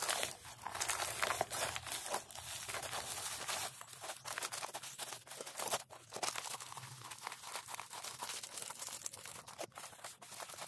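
Stiff, dried deer hide crinkling and crackling as it is pressed and rubbed by hand, being broken down after oiling to soften it into buckskin. The crackles come irregularly, in quick runs.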